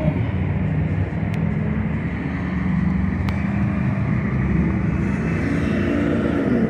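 A motor vehicle's engine running close by, a steady hum whose pitch edges upward near the end.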